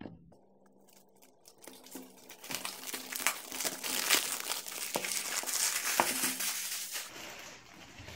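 Clear plastic shrink wrap crinkling as it is peeled off a cardboard product box. The crinkling starts about two and a half seconds in, is dense with sharp crackles, and dies away near the end.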